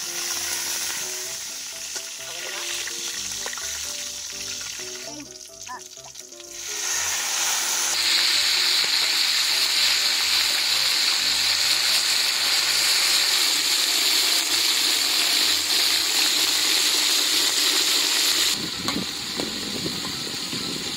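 Hot oil in a wok sizzling as herbs and lemongrass fry, then a much louder, steady sizzle from about seven seconds in as a batch of tarantulas is tipped into the oil to deep-fry. Near the end the sizzle drops back while a spatula stirs the wok.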